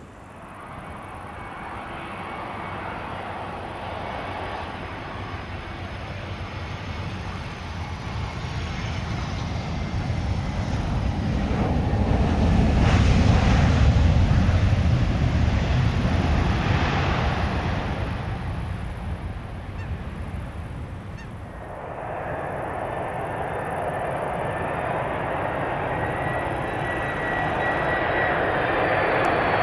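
An Airbus A320's jet engines during its landing rollout, swelling to a loud low rumble about halfway through and then fading. About 21 seconds in, the sound cuts to a Boeing 747-400F freighter on final approach: steady four-engine jet noise with a thin high whine.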